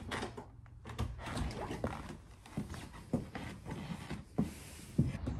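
Footsteps and the clicks and knocks of a wooden front door being unlatched and swung open, with a sharper knock near the end.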